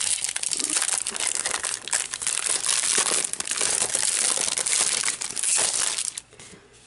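Clear plastic packaging crinkling as it is handled, stopping about six seconds in.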